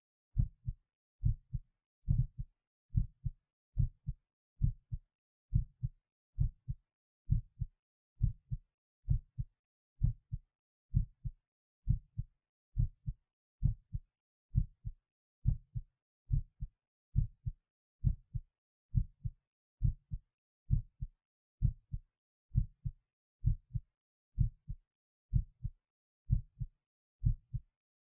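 A person's heartbeat heard at the apex of the heart: steady low lub-dub double thumps, just over one beat a second, with silence between beats.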